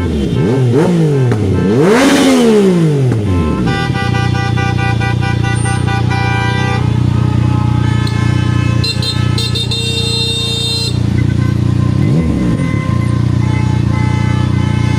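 Yamaha MT-09 three-cylinder engine running through an exhaust with a diffuser, its snoring exhaust note blipped up and down several times at the start, with the biggest rev about two seconds in. It then settles into a steady idle, with one more short blip about twelve seconds in.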